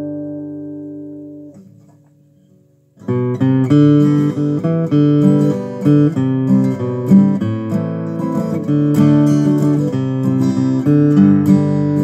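Martin OM-21 steel-string acoustic guitar: a chord rings and fades away, and after a short pause fingerpicked playing starts about three seconds in and carries on.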